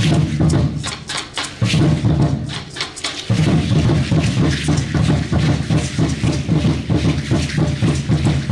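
Danza azteca drumming: a large upright huehuetl drum beaten in a fast steady rhythm, with the clicking shake of the dancers' ankle seed-pod rattles (ayoyotes) over it. The drumming thins out briefly twice in the first few seconds, then runs on without a break.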